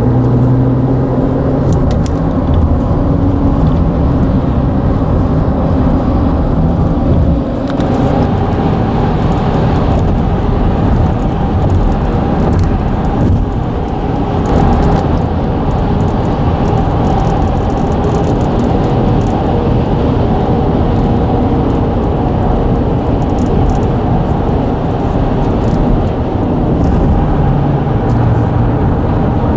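Steady, loud rumble and drone of vehicle traffic on a road bridge, the deck vibrating under the tyres, with scattered faint ticks.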